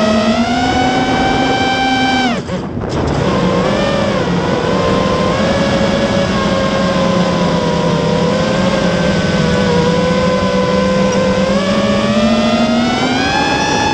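Spedix Black Knight 210 racing quadcopter's brushless motors and propellers whining, heard from the camera mounted on the quad, the pitch rising and falling with throttle. About two and a half seconds in, the pitch drops sharply and the sound dips briefly, then picks back up; it rises again near the end.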